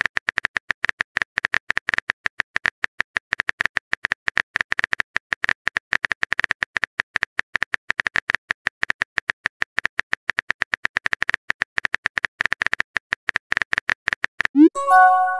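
Simulated phone-keyboard typing sound effect: a long run of rapid, irregular key clicks. Near the end a short rising swoosh and a multi-note chime mark the message being sent.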